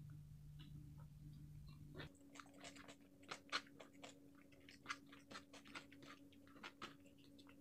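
A person chewing crispy fried chicken and rice up close: soft irregular crunches and wet mouth clicks, coming thickest from about two seconds in, over a faint steady hum.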